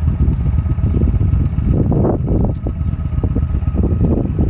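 Cruiser motorcycle's V-twin engine running loud and lumpy, with a couple of short throttle blips, one around the middle and another near the end.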